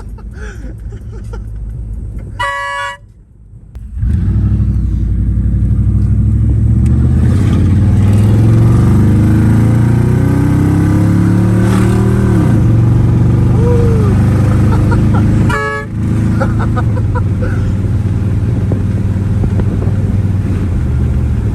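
A short horn toot about two and a half seconds in and another about sixteen seconds in, over a vehicle engine that runs loud and steady with a deep rumble from about four seconds in.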